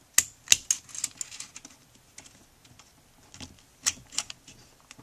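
Sharp small metal clicks and taps of a 1911's recoil spring plug and barrel bushing being pressed and turned into place against the recoil spring. Several come in the first second or so, and a few more after about three seconds.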